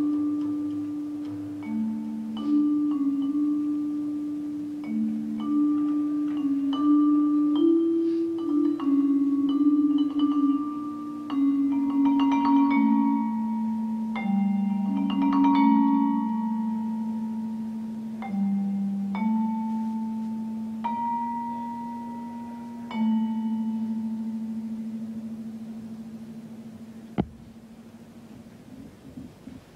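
Vibraphone played with mallets in a slow line of long, ringing notes, the last note dying away near the end. A single sharp tap sounds shortly before the end.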